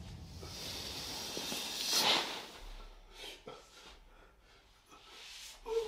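A stabbed man gasping: a long, hissing breath that swells and breaks off about two seconds in, followed by a few short, weaker breaths.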